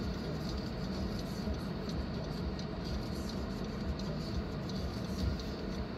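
Steady low hum and noise of a car heard from inside the cabin.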